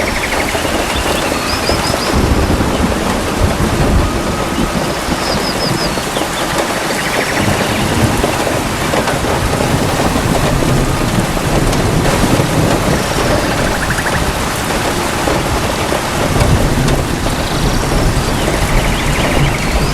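Steady heavy rain with low thunder rumbling in and out several times. Faint short high chirping trills recur every few seconds over the rain.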